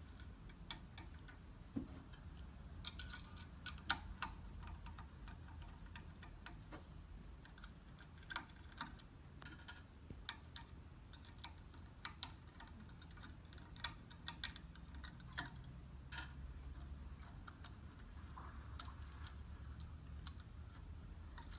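Faint, irregular clicks and ticks of a small Phillips screwdriver working small screws out of an ice shaver's motor starter-switch plate, with small metal parts being handled.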